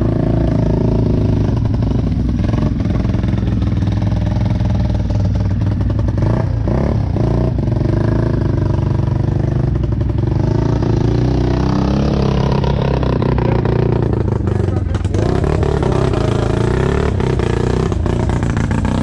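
A motor vehicle's engine running steadily under way, with scattered knocks and rattles, heard from the open back of the vehicle.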